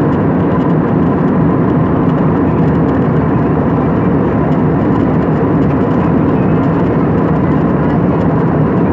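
Airbus A320 cabin noise in flight, heard inside the cabin over the wing: a steady rumble of the jet engines and airflow, with a faint steady whine above it.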